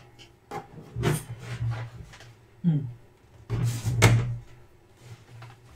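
Rummaging through a low kitchen cupboard: knocks of the cupboard and the things in it and rustling of packets, with a louder clatter about four seconds in.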